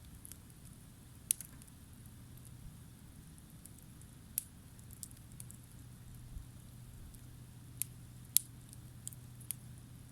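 Wood campfire crackling, with scattered sharp pops at irregular intervals, the loudest about a second in and about eight seconds in, over a low steady hum.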